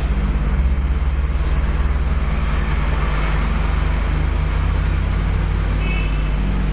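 Road traffic noise: a vehicle's rushing sound swells and fades in the middle, over a steady low hum.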